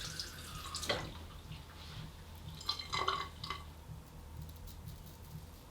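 Water splashing and dripping in a small sink or basin, in two short bursts about a second in and around three seconds in.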